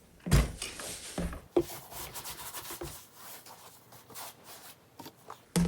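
Stiff-bristled shoe brush scrubbing a sneaker's sole in irregular rubbing strokes, with a few knocks in the first couple of seconds.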